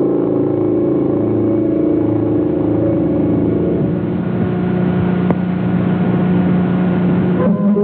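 Background music of long held chords, the chord changing about four seconds in.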